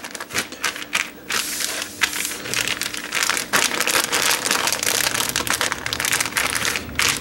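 Plastic Ziploc quart bag crinkling and rustling as hands press and spread the cooked green beans inside it flat, a run of fine crackles with brief lulls.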